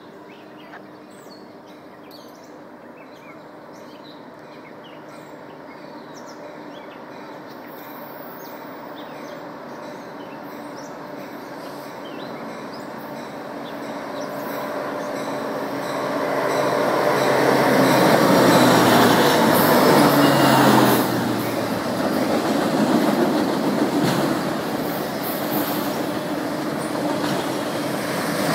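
CN diesel freight locomotive approaching with its engine drone growing steadily louder, loudest as it passes about two-thirds of the way through, then dropping off sharply. After that comes the even rumble and clatter of autorack freight cars rolling by.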